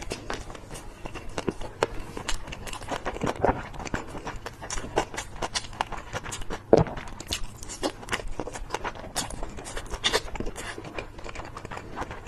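Close-miked eating of chicken on a stick: irregular wet chewing, biting and mouth clicks, with a few louder bites.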